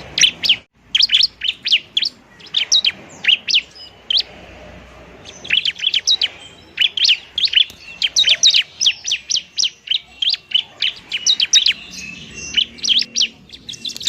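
Bar-winged prinia (ciblek) calling in fast runs of short, sharp chirps, with a lull of about a second near the middle before the chirping resumes more densely. These are the bird's excited fighting-mode (tarung) calls.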